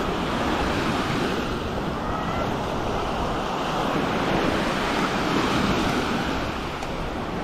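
Small waves breaking and washing up a sandy beach: a steady rushing surf that swells and eases.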